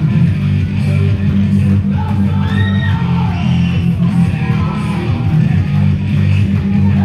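Loud rock entrance music with guitar and a singing voice, played through a PA system for a wrestler's ring entrance.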